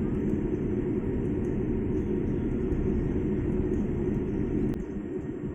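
Steady low rumble of an airliner's cabin noise after landing, with a single click about four and a half seconds in, after which the rumble drops slightly.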